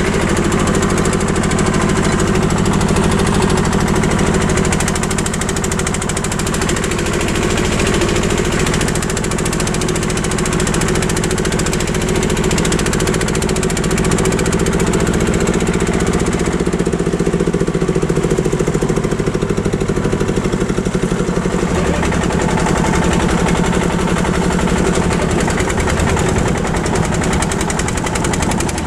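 Small vintage tractor's engine running under way, with a steady, rapid, even beat.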